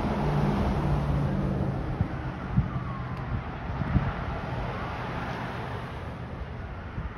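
Road traffic: cars approaching and passing with engine and tyre noise, and wind buffeting the microphone with a couple of sharp thumps. A faint siren rises and falls under the traffic.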